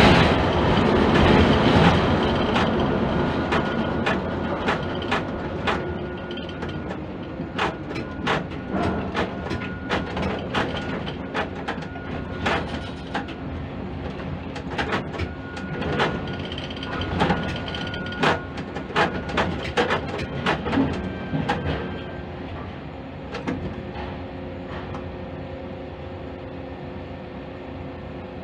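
Quay crane machinery heard from inside the operator's cab as the trolley travels back from the vessel to the quay: a steady mechanical hum with several held tones, broken by frequent sharp clicks and knocks. It is loudest at the start and eases off.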